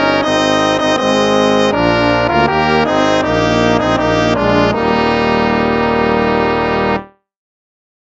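Instrumental hymn played with a brass, trombone-like sound in full chords. It moves through a run of changing chords, settles on a long held final chord, then stops about seven seconds in, leaving a second of silence.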